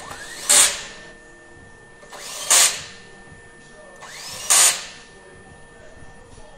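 Power tool running in three short bursts about two seconds apart. Each burst is a rising whine ending in a loud hiss, over a steady faint machine whine.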